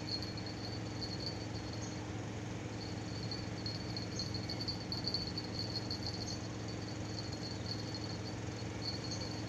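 Insects trilling: a steady high, finely pulsing trill that pauses briefly about two seconds in, over a low steady hum.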